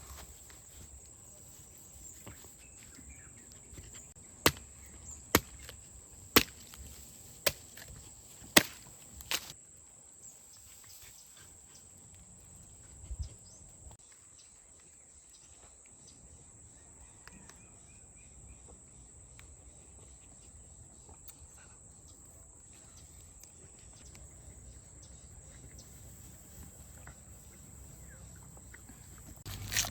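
Six sharp knocks about a second apart, then a lone softer knock, over a faint outdoor background with a steady high-pitched whine.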